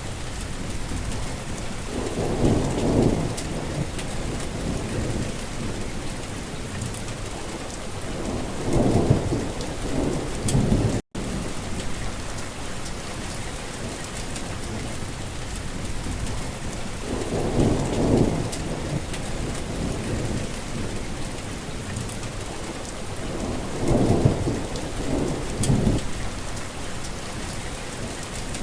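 Heavy rain falling steadily, with thunder rumbling four times as rolling low swells over the hiss of the rain. A split-second break in the sound comes near the middle.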